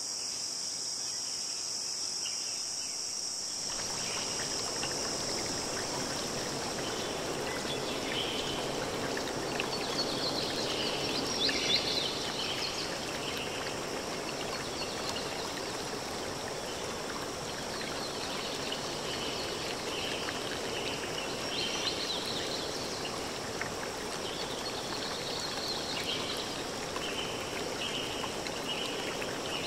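Steady high-pitched insect trilling, joined suddenly about four seconds in by the even rush of flowing water, with short bird chirps scattered over the water from about eight seconds on.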